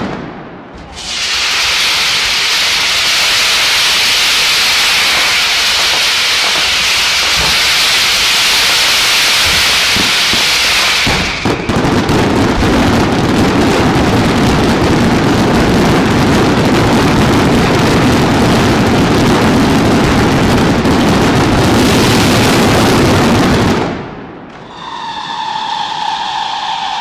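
Fireworks display going off in a dense, continuous barrage of bursts and crackling. It is a high hiss for about the first ten seconds, then deeper and fuller. It drops away about 24 seconds in, leaving a steady whistle with several pitches.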